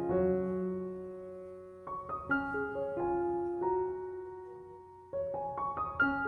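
Background piano music: gentle chords and single notes, each struck and left to ring and fade, with a fresh phrase starting about five seconds in.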